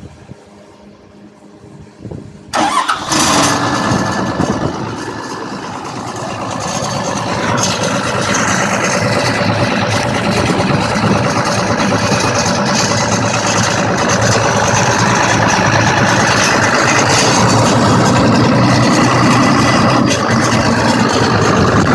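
Vehicle engine starting: after a couple of quiet seconds it catches suddenly about two and a half seconds in, then keeps running steadily, growing a little louder over the following seconds.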